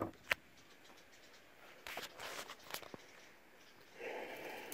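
Faint footsteps and rustling through dry, twiggy scrub and leaf litter, with a sharp click just after the start and a few soft crackles of twigs; a louder rustle of brushing against dry twigs comes near the end.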